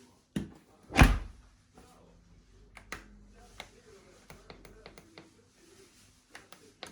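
A knock, then a loud thump about a second in, followed by scattered light clicks and taps over a faint low hum.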